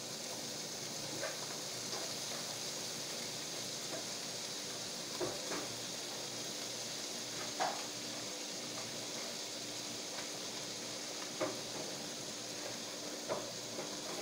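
Diced ham frying in butter and garlic in a nonstick pan, a steady sizzle, with a wooden spatula knocking against the pan a few times at irregular intervals as it is stirred.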